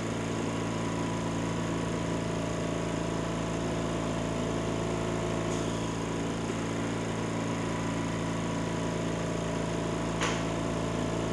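The internal air compressor of an OXG-40 ozone generator running steadily, a steady mechanical hum that is normal for the unit. A single sharp click about ten seconds in.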